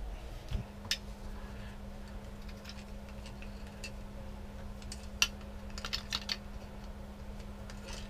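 Small clicks and light clatter of hard plastic toilet parts and a metal hose clamp being handled, a few at a time, the sharpest about five seconds in with a quick cluster just after, over a steady low hum.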